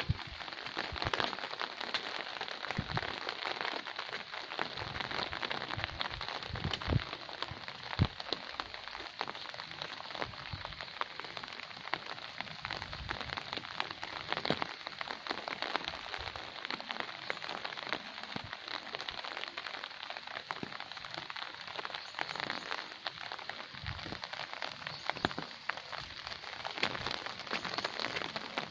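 Steady rain falling and pattering on hard surfaces, with scattered low thumps.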